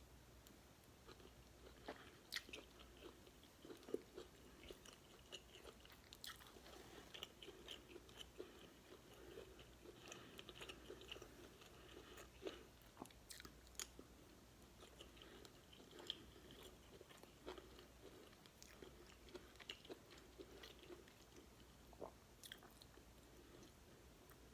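Quiet, close-miked chewing and eating of beef stew and cornbread: soft wet mouth sounds with scattered small clicks and smacks.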